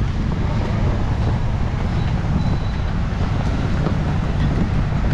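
Street ambience: a steady low rumble of traffic mixed with wind buffeting the microphone.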